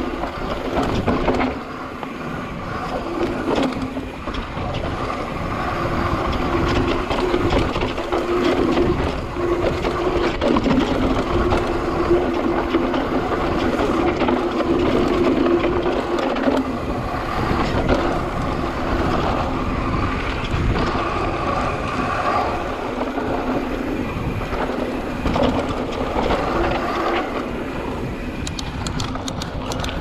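Trek Slash full-suspension mountain bike riding down a dirt trail: continuous tyre noise and rattling of the bike over the ground, with a steady buzzing drone that comes and goes and scattered knocks from bumps.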